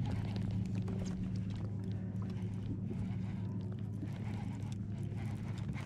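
Baitcasting reel being cranked while fighting a fish, with irregular clicks and knocks over a steady low hum.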